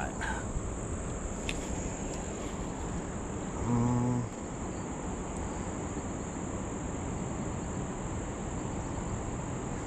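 Crickets trilling steadily in a high, unbroken drone. A short low hum sounds about four seconds in.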